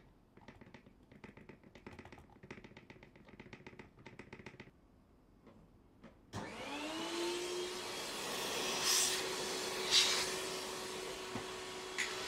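A quick run of small taps and rattles for about four seconds as the last toner is emptied from the bottle into the cartridge hopper. Then, about six seconds in, a small electric motor spins up with a rising whine and runs steadily with a rushing hiss, like a vacuum or blower used to clean off spilled toner.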